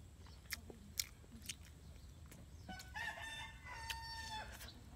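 A rooster crows once in the second half: one drawn-out pitched call lasting nearly two seconds that cuts off sharply. Before it there are a few sharp clicks from someone eating with their hands.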